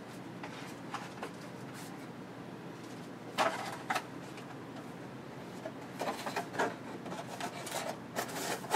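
Items and packaging being handled and rummaged in an open cardboard box: scattered light knocks and rustles, two sharper clicks about three and a half seconds in, and a busier stretch of rustling and knocking near the end, over a low steady hum.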